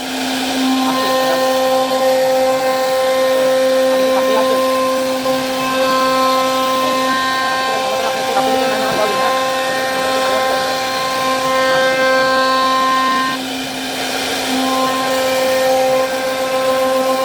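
CNC router spindle running with a steady high whine while carving a wooden door panel. The whine drops away briefly about three quarters of the way through, then returns.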